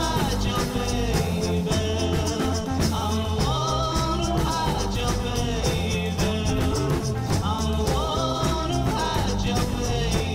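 Background music: an upbeat song with a steady drum beat, bass and a melody line.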